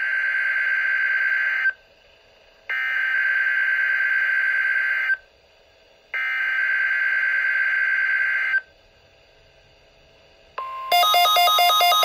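NOAA Weather Radio EAS SAME header from a Midland WR-120 weather radio's speaker: harsh, screechy digital data bursts, each about two and a half seconds, sent three times with a second of silence between. Near the end a short steady tone sounds, then a loud, rapidly alternating electronic alert tone begins as the radio decodes the Required Weekly Test.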